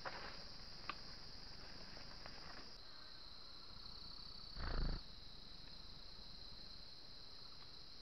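Steady high-pitched insect drone of the forest, with a couple of faint clicks near the start and one short muffled thump about halfway through.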